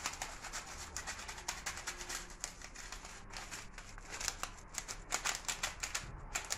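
Rapid, irregular light clicks and ticks with handling noise, from utensils and hands working over a glass dish as sugar-pearl sprinkles are spread on chocolate pudding.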